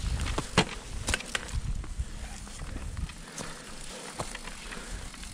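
Mountain bike (Orbea Rise e-MTB) riding over a rough trail: irregular knocks, clicks and rattles from the bike and tyres over bumps, over a low rumble that drops away about three seconds in.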